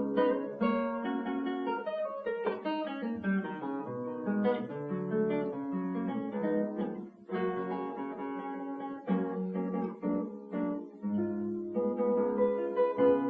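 Solo classical guitar playing a plucked melody over bass notes, with a brief break about seven seconds in.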